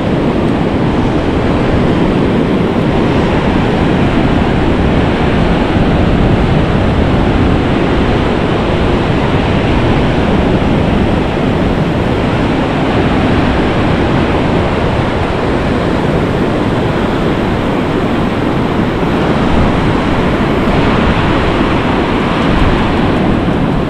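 Sea surf breaking and washing up the beach, a steady roar of noise mixed with wind buffeting the microphone.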